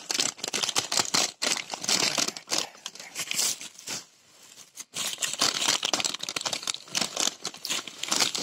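A thin plastic bag crinkling and rustling as cornflakes are shaken out of it into a glass bowl: a dense run of crackles with a short pause about four seconds in.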